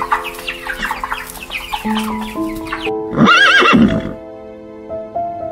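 Chicks peeping rapidly in short, falling chirps, then about three seconds in a horse neighs once, loud and wavering in pitch, for about a second. Background music with steady held notes runs under both.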